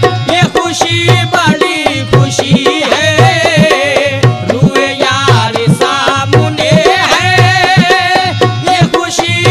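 Qawwali music: a steady tabla beat under a wavering, ornamented melodic line.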